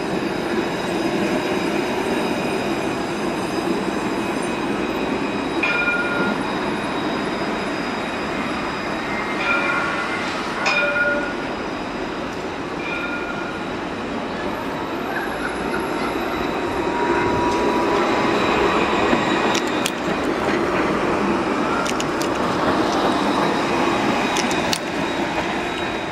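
Alstom Citadis low-floor tram running past on its track, a steady rolling and motor noise, with a few short high beeps in the first half and some sharp clicks near the end.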